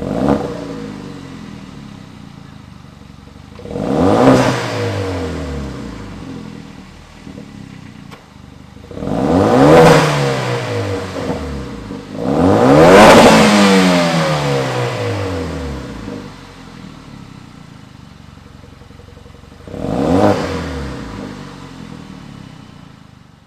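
Hyundai Veloster Turbo's turbocharged 1.6-litre four-cylinder engine idling through a cat-back exhaust and being free-revved five times while parked, each rev rising and falling back to idle; the rev near the middle is the longest and loudest.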